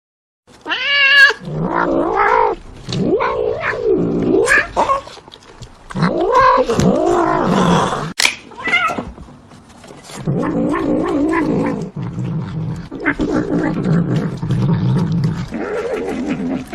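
Cat yowling in displeasure: long, wavering calls that rise and fall in pitch, in several bouts, with a shorter high-pitched call at the start.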